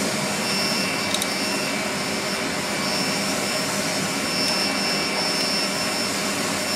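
Electric shop fan with a broken blade running steadily: a constant whooshing rush with a steady high whine over it.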